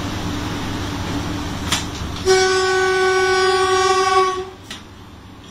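Class 7E locomotive's horn heard from inside the cab: one steady single-note blast of about two seconds, starting a little over two seconds in and cutting off sharply. A steady background hum runs under it, with a short click just before and just after the blast.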